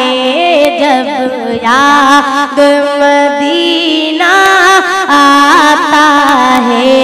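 A boy's high singing voice performing an Urdu naat, drawing out long held notes with wavering, sliding ornaments and short breaths between phrases.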